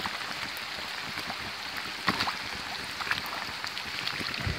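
Steady rush of a rain-flooded creek, with scattered light ticks and a sharper tick about two seconds in.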